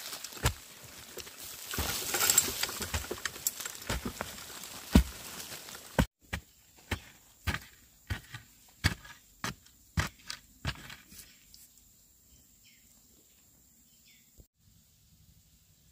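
Rustling handwork, then a run of sharp knocks at about two a second that stops about eleven seconds in.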